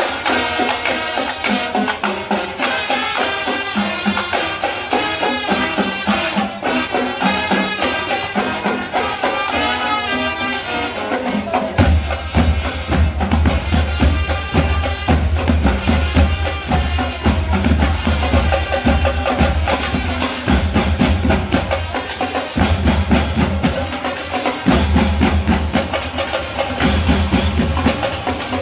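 Marching band music: a melody line over busy, rapid percussion, with a heavy bass drum beat coming in a little under halfway through.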